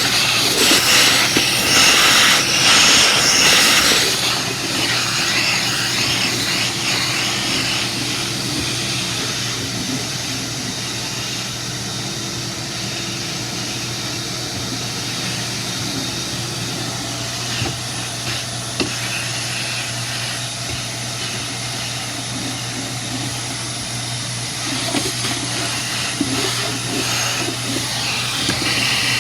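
Ridgid WD1270 12-gallon wet/dry shop vac running steadily: a constant motor hum under rushing airflow through the extension wand and floor attachment. The hiss of the air is louder in the first few seconds and again near the end.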